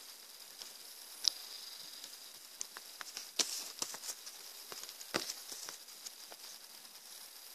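Crinkling and rustling of a plastic bag and paper being handled, with scattered light clicks and taps, the loudest about a third and two thirds of the way in, over a faint steady high whine.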